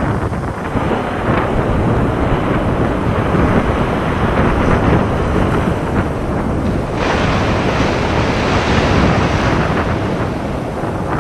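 Loud, steady rush of surging water and wind. About seven seconds in it turns hissier.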